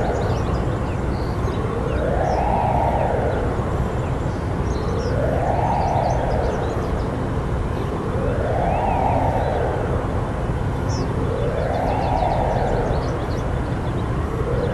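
Federal Signal Modulator 1004 electronic siren sounding a wail: its tone rises, holds briefly and falls again, repeating about every three seconds.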